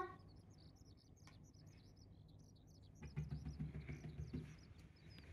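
Faint bird chirps, short and high, repeating all through. About three seconds in, a low rumble with light knocks lasts about a second and a half: handling noise as the camera is moved.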